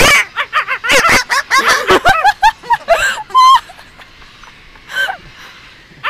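White cockatoo calling in a rapid run of short, chattering squawks that stop about three and a half seconds in, with one more brief call near the end.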